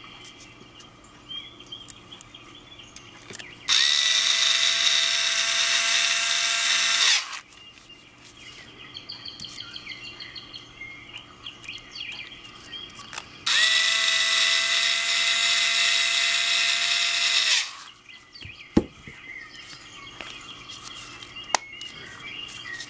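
Electric screwdriver running in two steady whining runs of about four seconds each, driving screws back into a push-button trigger lock, with small clicks of handling between.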